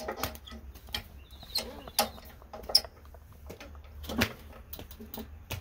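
Irregular clicks and knocks of metal parts being handled on a Poulan push mower's engine, around the spark plug, with a few sharper knocks about two seconds in, around four seconds in and at the end.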